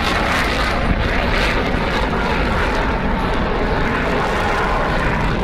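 Steady aircraft engine noise from an aeroplane in flight.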